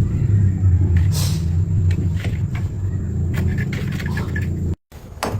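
Electric drill motor running with a steady low hum, drilling into brick masonry to make the hole for an anchor; it breaks off abruptly near the end.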